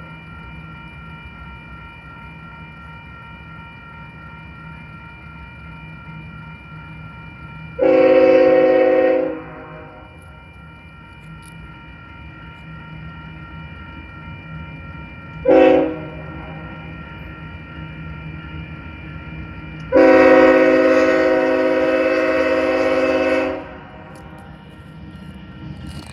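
Diesel locomotive's multi-chime air horn sounding for a grade crossing as the train approaches: a long blast, a short toot, then a final long blast of about three and a half seconds. Between the blasts a steady ringing of the crossing bell and the low rumble of the train carry on.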